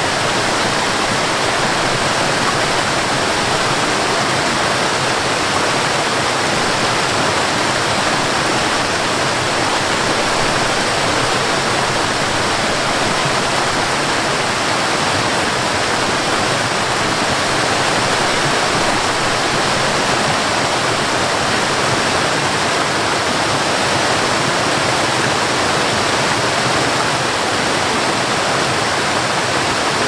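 Cascading waterfall: water rushing and splashing down over rocks in a steady, unbroken roar of white noise.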